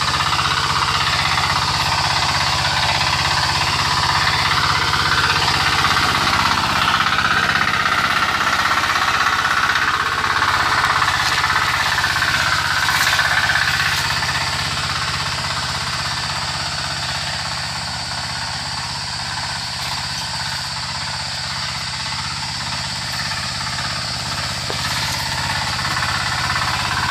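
Sappers SPT-9 9 HP diesel power tiller engine running steadily with a knocking diesel beat. It eases slightly in loudness past the middle and picks up again near the end.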